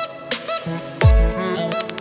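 Background electronic music with steady synth tones and a deep falling bass hit about a second in.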